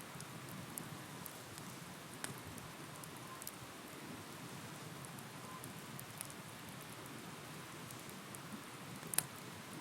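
Bonfire of burning wood crackling: a steady soft hiss with scattered small pops, a sharper crack about two seconds in and the loudest crack near the end.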